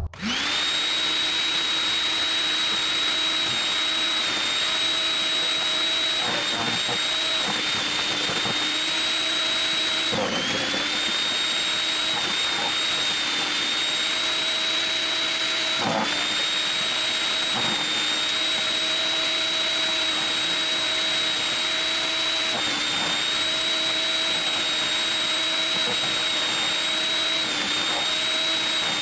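Portland electric wood chipper running with a steady high motor whine, briefly dipping and wavering a few times as branches are fed in and chewed.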